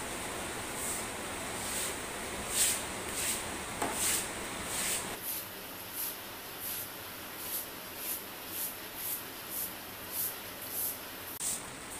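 Sweeping with a plastic broom: short swishes of the bristles across the floor, coming about twice a second in the second half.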